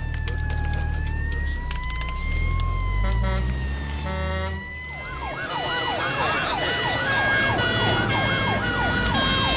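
Emergency vehicle sirens over a heavy engine rumble: first a slow rising and falling wail with a few short horn blasts. Then, about five seconds in, a fast yelping siren takes over.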